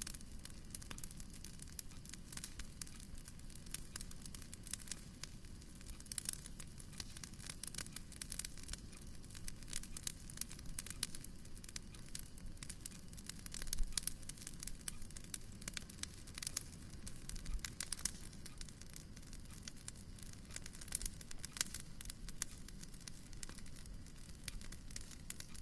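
Wood fire crackling in a fireplace: a dense run of irregular small pops and snaps over a low, steady rumble, with one louder pop about midway.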